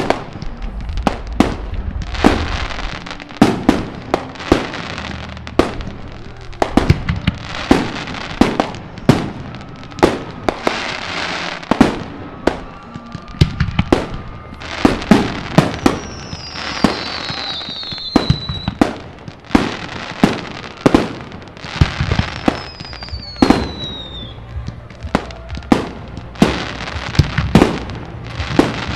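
Aerial fireworks shells bursting in quick succession, a sharp bang every second or so, many trailing into crackle. Twice a high whistle glides down in pitch.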